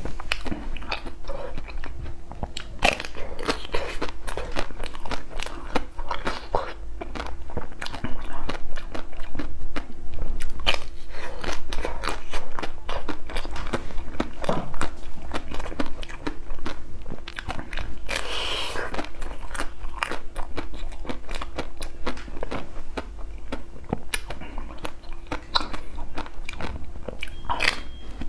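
Close-miked biting and chewing of a chocolate-coated ice cream bar, the shell crunching and crackling in many sharp snaps. A faint steady hum runs underneath.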